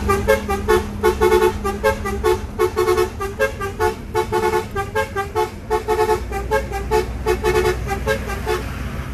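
A melodic tune of short, bright, horn-like notes in a quick, regular rhythm.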